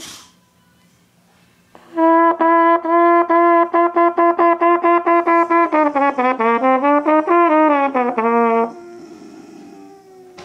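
Trumpet playing a quick run of short, evenly tongued repeated notes, about five a second, starting a couple of seconds in; the notes dip lower in pitch and climb back before stopping.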